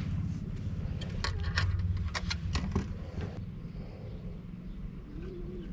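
Wind rumbling on the microphone, with several sharp clicks from about one to three and a half seconds in as fishing tackle is handled, and a dove cooing near the end.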